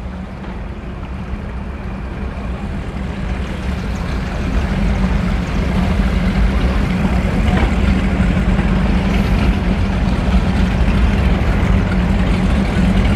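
Motorboat engine running at slow speed, a steady low rumble that grows louder as the boat comes close by.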